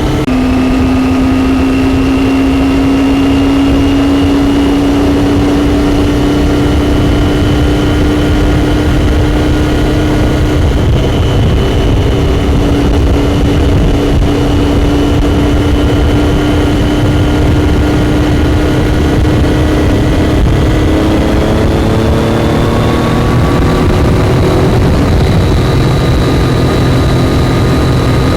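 Triumph Daytona 675's inline-three engine pulling steadily at road speed, its note climbing slowly, then shifting and rising again about 21 seconds in, over a heavy low rush of wind.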